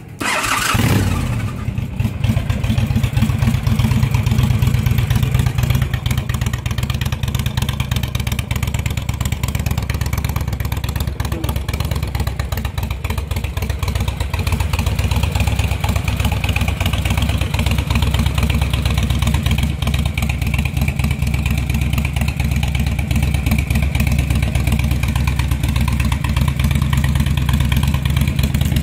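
2007 Honda VTX 1300R's V-twin, running through straight Muzzy pipes, starting up with a brief flare in revs and then settling into a steady idle.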